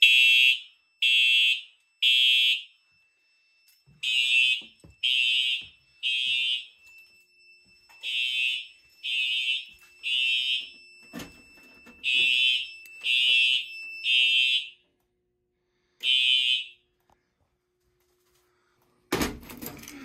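Fire alarm horn sounding in the temporal-three evacuation pattern: three half-second blasts, a pause, then three more, over and over. It stops after a single blast about three-quarters of the way through, and a loud clatter comes just before the end.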